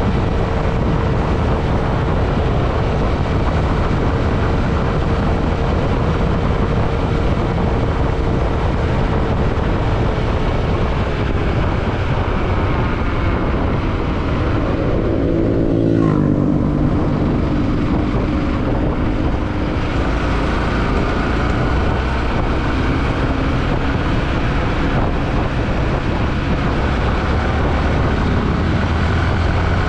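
Yamaha WR155 motorcycle's single-cylinder engine running while riding, under heavy wind rush on the microphone. About halfway through the revs climb and then drop sharply.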